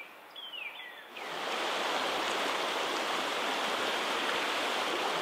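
A couple of short, falling whistled bird calls, then about a second in the steady, even rush of flowing creek water sets in and holds.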